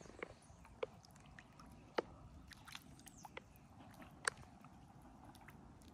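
Faint small water sounds of light lapping and dripping against the side of a plastic fishing kayak, with a few sharp clicks, about three, spread through.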